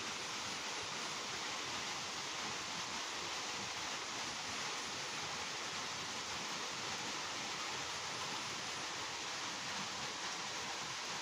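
Steady, even hiss of background noise with no distinct sound events.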